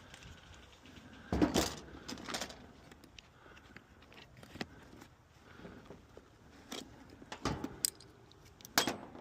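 Scattered metallic clicks, knocks and rattles of tools and screws being handled while the furnace's igniter assembly is worked on, with a few louder knocks about a second and a half in and near the end.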